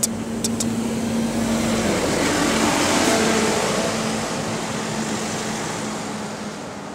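Double-decker bus pulling away from the stop, its engine and cooling fan running with a steady low hum. The noise swells to its loudest about three seconds in and then fades as the bus draws off, with other traffic going by. Two short ticks sound just after the start.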